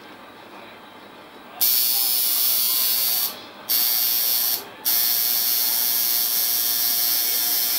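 Electric tattoo machine buzzing as it inks a tattoo into skin. It starts about a second and a half in and runs in three stretches, with two short pauses as the needle is lifted.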